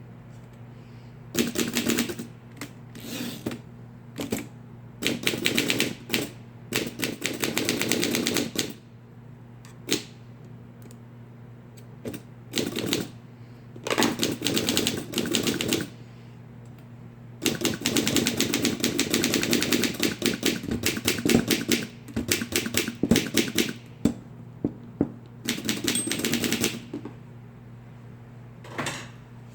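Bursts of rapid mechanical clicking, each a second to a few seconds long with short pauses between, over a steady low hum.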